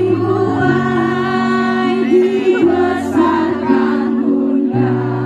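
Music: a woman singing a slow melody over long held chords and steady bass notes.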